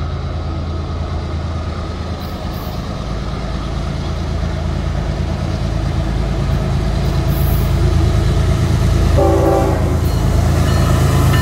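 Canadian Pacific diesel freight locomotives approaching, their low engine rumble growing steadily louder. A short horn blast sounds about nine seconds in, and the horn starts again near the end.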